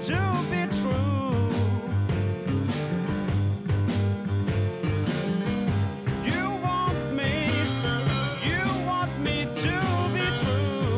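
Rock music from a band: steady drum beat, a bass line and a lead melody of bending, gliding notes.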